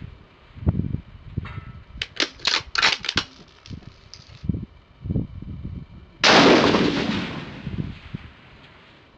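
A Surgeon Scalpel .243 rifle with a Badger FTE muzzle brake fires once, about six seconds in: a sharp, loud blast that echoes and dies away over about two seconds. A few seconds before the shot comes a quick run of sharp metallic clicks, the bolt being worked to chamber the next round.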